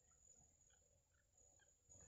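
Near silence: faint, short peeps of bittern chicks begging for food, scattered a few a second, over a steady very high-pitched tone.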